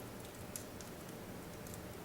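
Wood fire burning in a fireplace: a steady low rumble and hiss, with a couple of sharp crackling pops.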